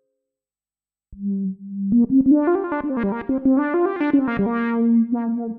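ASM Hydrasynth synthesizer played from its keyboard. Silence for about a second, then a short low held note, then a melody of notes with a sustained lower note underneath.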